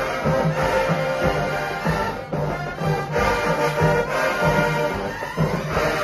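HBCU show-style marching band playing a tune: full brass section over a steady drum beat.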